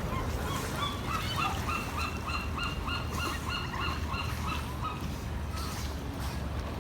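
A bird calling in a quick run of about a dozen short, even calls, roughly three a second, which fades out after about five seconds. Under it is a steady low rumble of wind and surf.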